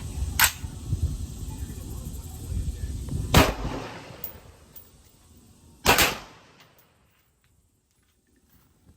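Three single gunshots from a handgun or AR pistol, a few seconds apart. The first is weaker, the second is the loudest and the third rings out briefly. A low rumble lies under the first shots.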